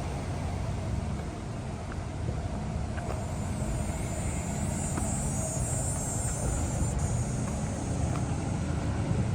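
Road traffic going by: a steady low rumble, with a high hiss from a passing vehicle swelling in the middle.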